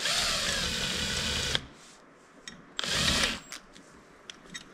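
Cordless drill boring out the converter feed orifice in a Powerglide transmission's cast pump body. It runs in two bursts: about a second and a half with its pitch sagging slightly as the bit cuts, then a short burst about three seconds in, with small clicks between.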